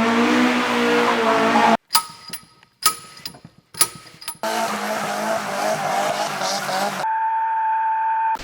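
Car engine running at high revs with tyre noise, cut by three sharp hits about two to four seconds in. A steady electronic tone sounds over the last second and a half.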